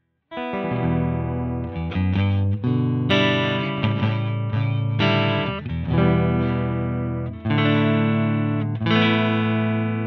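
Electric guitar playing a run of chords through a TC Electronic Mimiq Mini doubler pedal, starting suddenly after a moment of silence, with a last chord left ringing near the end. The chords are played to demonstrate the pedal's dry-level knob.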